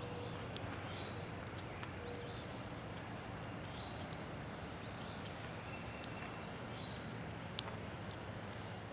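Songbirds chirping in short calls every second or so, over a campfire crackling with scattered sharp clicks and one louder pop about seven and a half seconds in.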